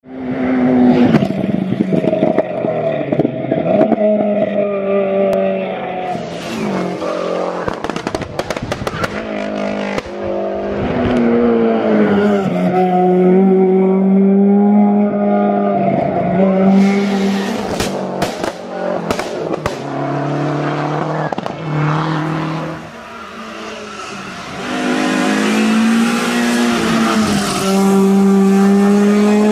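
Peugeot 306 S16 race car's four-cylinder engine at full throttle on a hillclimb run, pitch climbing and dropping with each gear change. Clusters of sharp cracks come from the car as it lifts off, twice.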